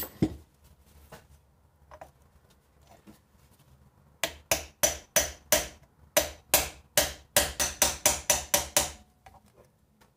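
Hammer blows on a metal block set over a new tapered roller bearing, driving the bearing down onto a differential carrier's journal. There are about seventeen sharp strikes, roughly three a second, with a short pause after the first five and quickening toward the end.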